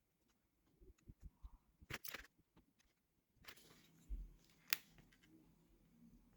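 Faint small clicks and taps of hand tools and small parts being handled at a workbench, a quick run of them in the first couple of seconds and one sharp click about halfway through, over a faint low hum.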